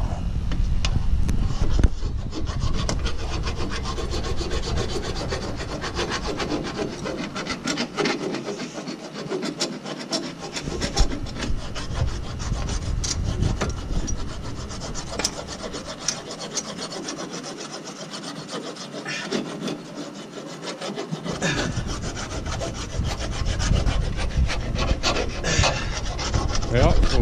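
Rasping, scraping strokes of hand filing on metal at the rear brake caliper, taking it down so the wheel clears it.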